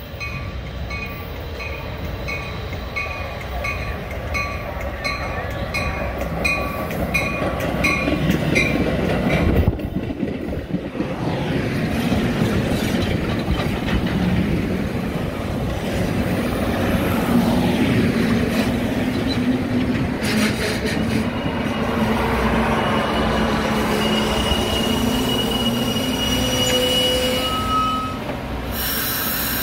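Metra commuter train of stainless-steel bilevel coaches pulling into a station and rolling past at low speed, wheels and brakes squealing as it slows. For the first nine seconds or so, grade-crossing bells ding about twice a second. In the last few seconds a high squeal holds steady.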